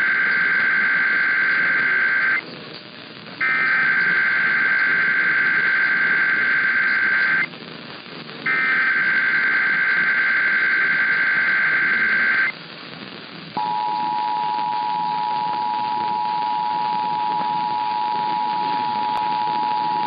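Emergency Alert System test heard over AM radio with background hiss: the end of the first of three screeching SAME header data bursts, then two more, each about four seconds long with a second's pause between, which announce the start of an EAS message. About 13 s in the steady two-tone EAS attention signal begins, the signal that precedes the spoken alert, and runs on past the end.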